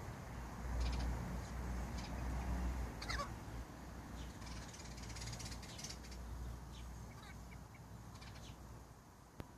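Hen sneezing during a sneezing fit: short, sharp sneezes every second or two. A low rumble runs through the first few seconds, and a bird calls once about three seconds in.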